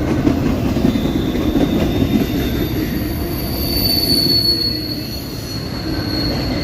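The tail end of an intermodal freight train rolling past: a steady rumble of wheels on rail with a thin, high wheel squeal that is strongest about four seconds in.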